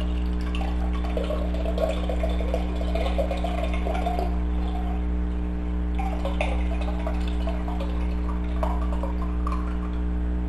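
Water pouring from a tall aluminium can into a glass boot mug, splashing and gurgling as the boot fills, over a steady low hum.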